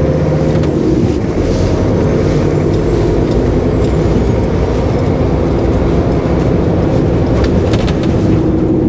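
HGV's diesel engine and road noise heard from inside the cab as the truck drives along, a steady low drone, with a few short clicks near the end.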